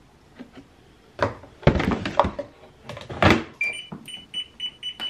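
A few hard plastic clunks from the laundry detergent cap and dispenser drawer being handled. Then the front-loading washing machine's control panel beeps, a quick run of short high beeps about five a second, as the programme dial is turned.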